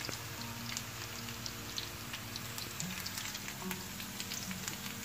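Sliced onions and dried red chillies sizzling in hot oil in a frying pan, with many small crackling pops: the onions frying for a baghar tempering.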